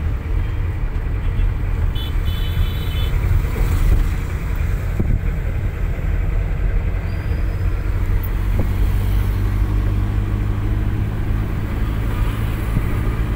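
Steady low rumble of a car's engine and road noise, heard inside the moving car's cabin. A short, high-pitched horn toot sounds from traffic about two seconds in.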